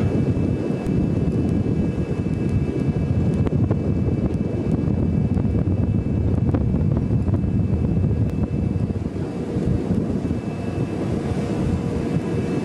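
Steady low rumble of wind and ship machinery, as heard from a vessel's deck at sea, with a faint steady hum over it.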